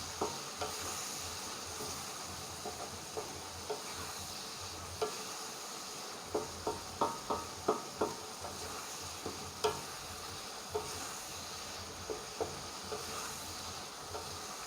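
Squid and potato stir-fry sizzling in hot oil in a pan while a utensil stirs it, knocking and scraping against the pan. There is a quick run of clacks around the middle.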